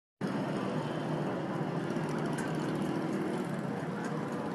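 Steady street noise of road traffic, with a few faint clicks.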